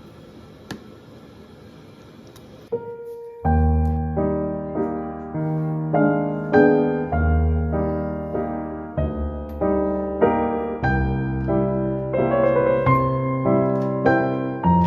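Background piano music with a melody over low bass notes, coming in about three seconds in after a faint hiss with a single click.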